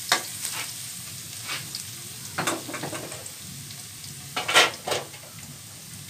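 Chopped garlic sizzling in hot oil in a metal wok, with a few short, louder scrapes of a metal spatula against the pan, the strongest about two and a half and four and a half seconds in.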